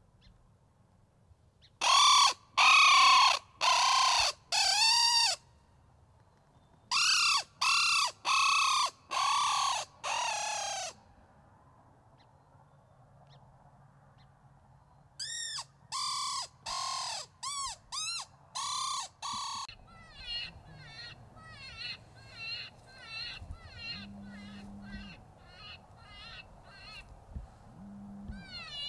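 Electronic predator caller playing loud cawing calls in groups of four, five and six, each call about half a second long, then a quicker run of fainter, higher calls that fall in pitch near the end.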